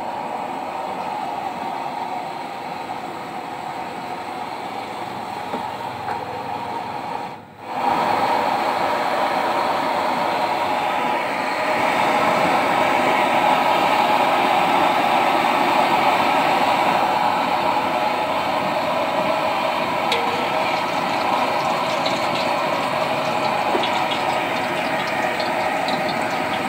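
Gas stove burner under a wok of heating cooking oil, running with a steady rushing noise. It drops out briefly about seven seconds in, then comes back a little louder.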